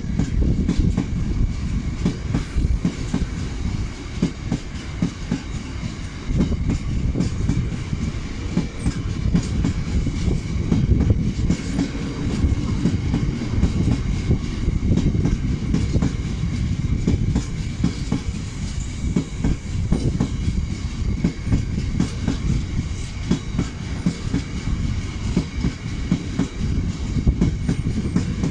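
Freight train of bogie hopper wagons rolling past: a steady low rumble with a rapid, continuous clatter of wheels over the rail joints.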